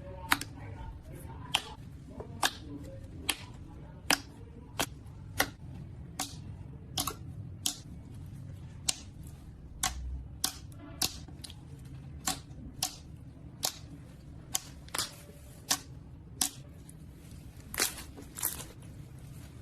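Slime being pressed and poked by hand: a long run of sharp clicking pops, roughly one every half second to second.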